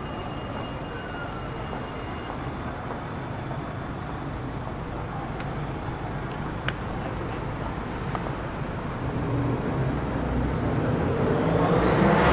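Road traffic noise, a steady hum of passing vehicles. A motor vehicle's engine grows louder over the last few seconds as it approaches.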